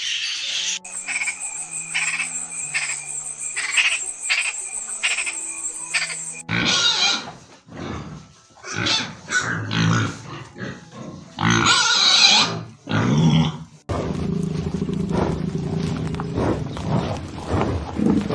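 Background music with a steady rhythm, then from about six seconds in a series of loud, irregular animal calls, followed near the end by a steady noisy stretch with a low hum.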